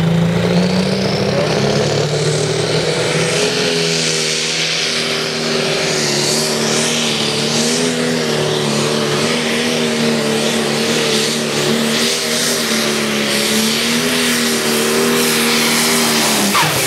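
Diesel engine of a modified pulling tractor at full throttle during a pull, a loud, steady, slightly wavering note with a strong hiss above it. Near the end the note drops lower.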